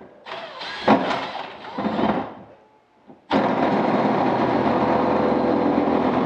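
Cordless drill starting abruptly about three seconds in and then running steadily at full speed while it bores a hole through the wall of a plastic deck box. Before that come some short, uneven handling sounds.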